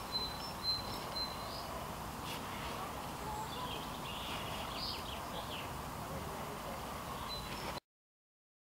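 Steady outdoor background noise with small birds chirping and whistling, and a couple of soft knocks about a second in. The sound cuts off abruptly to silence near the end.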